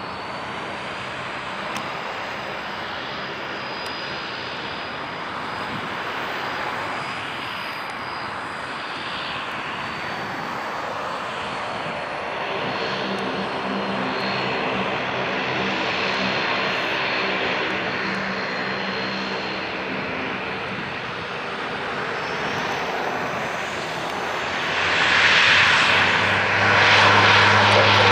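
Bombardier Dash 8-Q400's twin Pratt & Whitney PW150A turboprops running at low power with a steady high turbine whine; about twelve seconds in, a low propeller drone sets in. Near the end the engines spool up to takeoff power and get much louder.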